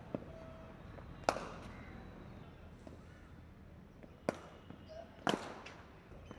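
Four sharp cracks at irregular gaps of one to three seconds, each with a short ringing tail, over a faint steady background.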